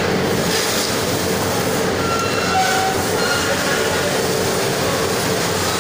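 Steady, loud rumble and hum of factory machinery, unbroken throughout, with a few faint short tones over it.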